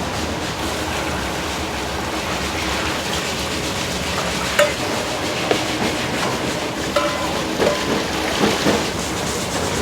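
Steady commercial kitchen noise, a constant hiss and rumble of cooking equipment, with a few sharp clinks of utensils from about halfway through to near the end.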